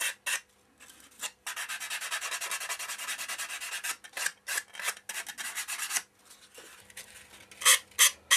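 Sandpaper rubbed back and forth along the dope-stiffened tissue edges of a balsa model tail surface, sanding them to a neat finish. Short scraping strokes run together into rapid continuous sanding for a couple of seconds, then come singly again, pause briefly, and return louder near the end.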